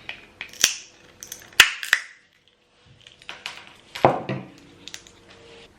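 Walnut shells cracking in a hand walnut cracker: a series of sharp cracks and clicks.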